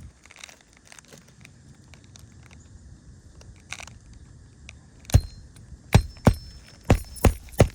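Hand work on an asphalt shingle roof during a shingle repair: faint rustling and handling, then six sharp knocks in quick, uneven succession over the last two and a half seconds.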